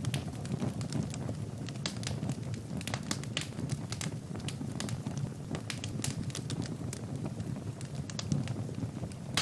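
Fire in a fireplace crackling: frequent irregular sharp pops and snaps over a steady low rumble of flames.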